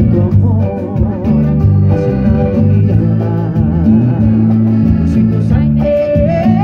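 Live band playing cumbia.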